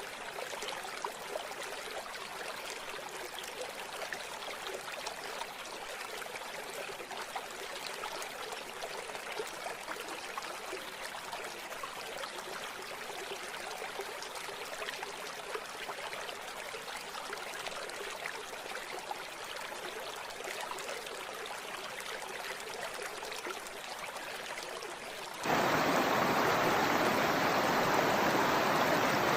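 River water flowing over stones in a steady rushing and trickling. About 25 seconds in it cuts abruptly to a louder, fuller and deeper rush of water.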